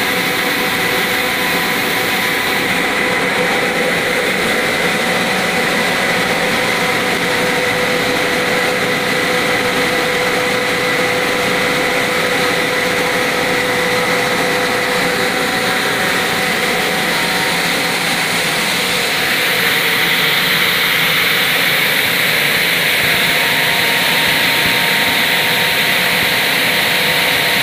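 PS/PE foam recycling machine running: a steady mechanical drone with constant whining tones, growing slightly louder and hissier about two-thirds of the way through.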